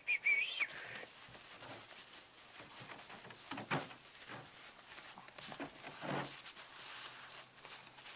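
Chihuahua puppies' paws pattering and scratching on a puppy pad, with two louder scuffles around four and six seconds in. A high, warbling puppy whine cuts off within the first second.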